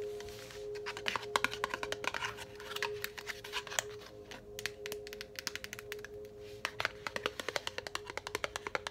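Tapping on a hard object in quick, irregular runs of clicks, over a steady held note of soft background music.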